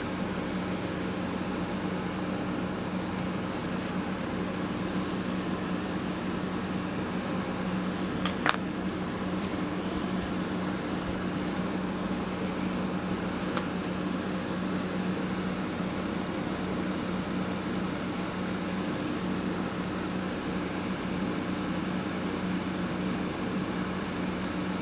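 Window air conditioner running with a steady hum and fan noise. Two brief light clicks, about eight and thirteen seconds in.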